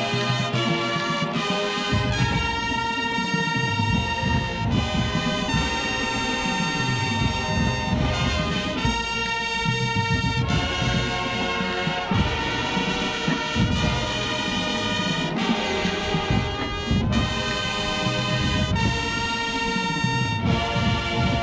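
College marching band playing, the brass section carrying a melody in held chords that change every second or so.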